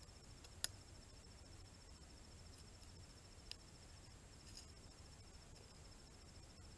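Near silence with faint insect trilling, a steady, rapid high-pitched pulsing, and a low background rumble. A sharp click sounds under a second in, and a softer one about three and a half seconds in.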